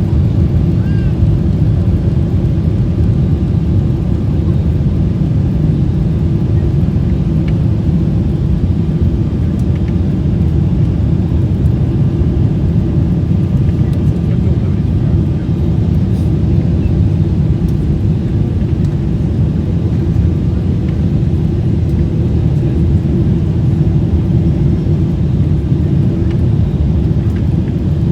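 Boeing 777-300 airliner heard from inside the cabin during landing: a steady low rumble of engines and airflow, with faint steady engine tones above it.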